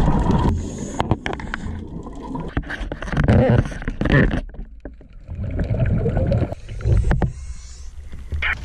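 Water noise on a diver's small camera during a scuba ascent: bubbling and rushing water, then sloshing and splashing as the diver reaches the surface. The sound comes in uneven surges with scattered clicks, dropping off briefly about halfway through.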